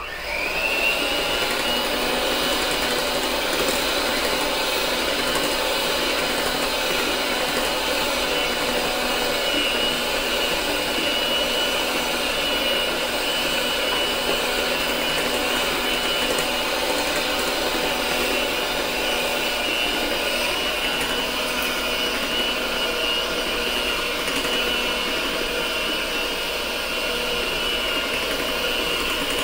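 Electric hand mixer switched on and beating cake batter in a glass bowl: a whine that rises as the motor speeds up in the first second, then a steady motor whir.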